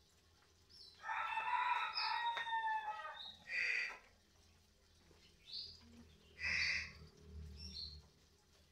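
Bird calls: one long call of about two seconds with several steady tones that falls at its end, then short, loud calls a second or two apart, from a caged songbird.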